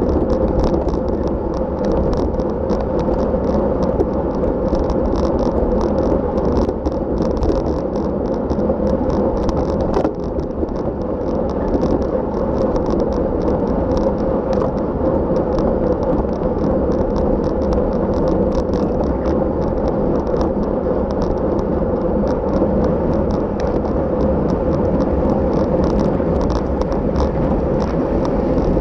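Road bicycle ridden at race speed: steady road and wind noise with many small fast rattles and ticks from the bike and mount.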